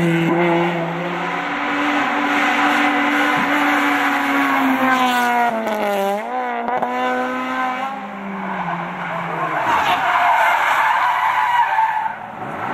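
Competition cars' engines revving hard through a hairpin, one after another. About six seconds in the engine note drops sharply with wavering pitch as a car brakes and downshifts, then climbs again as it accelerates out, and tyres squeal as a car slides round the bend.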